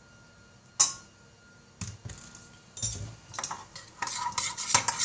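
A spoon knocking and scraping against a bowl while stirring glue and liquid detergent together into slime: a few separate knocks at first, then quicker, continuous clinking from about the middle on.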